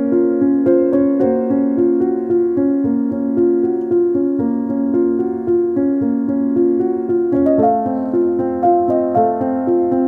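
Background piano music: a steady run of held notes, moving to a new chord about seven and a half seconds in.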